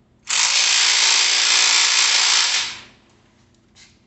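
Cordless drill-driver running steadily at the bike's handlebar stem, driving a bolt, for about two and a half seconds before it winds down.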